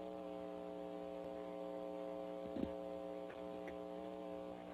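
Steady electrical mains hum on a phone-call line, with a faint single tick about two and a half seconds in.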